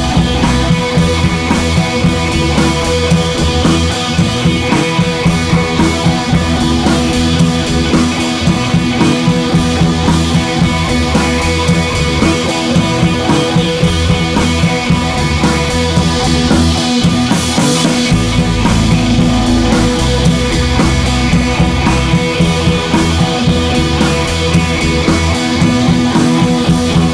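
Rock background music with drums and electric guitar and a steady beat.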